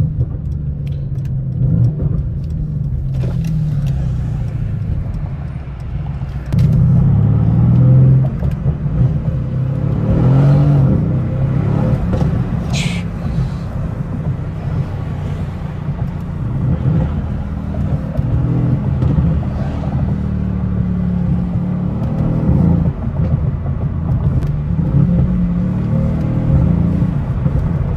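Mercedes-AMG C63's 4-litre twin-turbocharged V8 (M177) heard from inside the cabin while driving, through a stock exhaust with no valves, which is loud all the time. It gets louder about six and a half seconds in and then runs on steadily.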